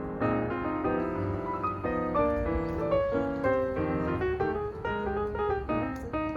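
Piano music, a run of quick notes at a steady level.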